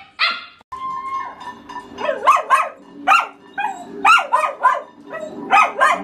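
Samoyed barking: a puppy gives a bark at the very start, then after a short break an adult Samoyed barks repeatedly, short high barks often coming in quick pairs.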